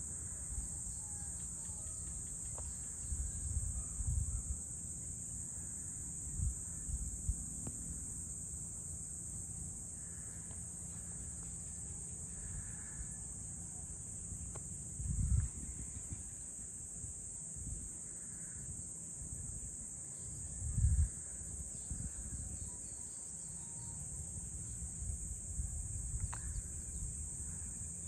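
Steady high-pitched chorus of insects, continuing unbroken. A few brief low rumbles come and go, the loudest about halfway through and again about three quarters of the way in.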